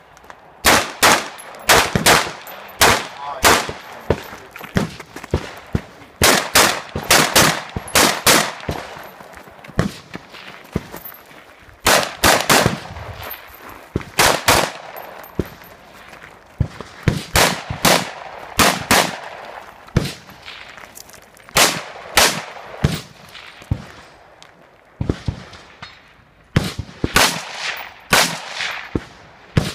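Semi-automatic rifle shots fired in quick pairs and short strings, each crack followed by a short echo, with brief pauses between the groups.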